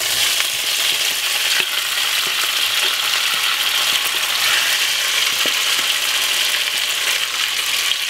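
Chopped peppers, onion, carrot and tomato sizzling steadily in hot oil in a frying pan as they are scraped in from a bowl, with a few faint knocks from the scraping.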